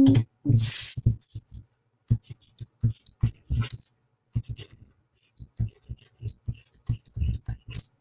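Stylus tapping and scratching on a touchscreen while equations are handwritten: short, irregular taps, several a second, each with a dull low knock. A louder rustle comes in the first second.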